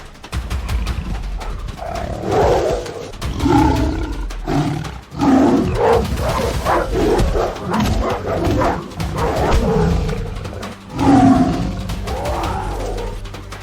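Animated lion and wolves roaring and snarling in a fight, one cry after another in quick succession, over a low steady drone.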